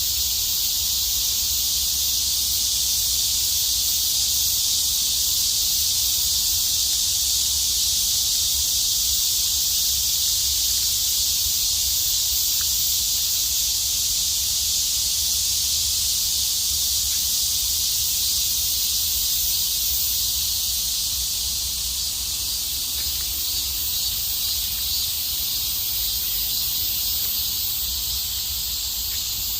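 Steady chorus of cicadas, a continuous high buzzing hiss, with a low rumble underneath.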